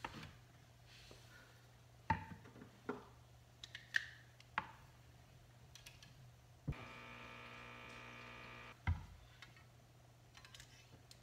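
Quiet kitchen handling sounds: a cabinet and glassware knocking several times as a glass and a jar are set on a counter. About seven seconds in, a small electric appliance hums steadily for about two seconds, starting and stopping with a click.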